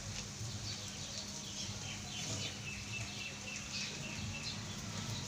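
Birds chirping in the background, a run of short, high, falling chirps in the middle of the stretch, over a steady low hum.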